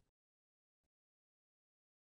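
Near silence: a muted gap in the narrated soundtrack.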